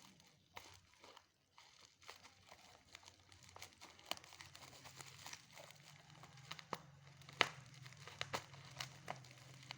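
Parcel packaging being crinkled and torn open by hand: irregular crackles and rustles, with a few sharper snaps in the second half.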